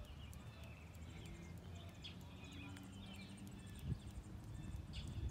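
Small birds chirping and twittering in quick, overlapping short calls over a steady low background rumble.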